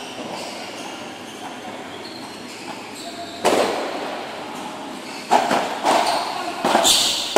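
Padel ball being bounced and struck by paddles: a single sharp knock about three and a half seconds in, then a run of knocks about half a second apart near the end as a serve and rally begin, each with a short echo.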